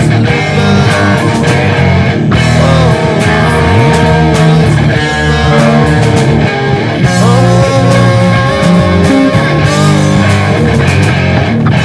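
Loud rock music with guitar, playing steadily.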